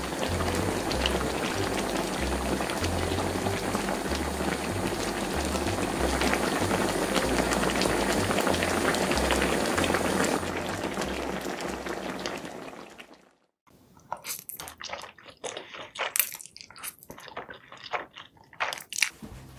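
Spicy red sauce boiling in a pot of rice cakes and fish cakes on a gas burner, a dense bubbling hiss with soft background music underneath. It fades out about thirteen seconds in, and a run of short sharp clicks and snaps follows.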